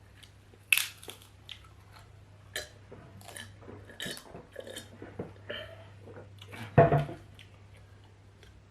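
Close-miked chewing and eating of potatoes: scattered wet mouth clicks, smacks and bites, with a heavier, louder sound about seven seconds in.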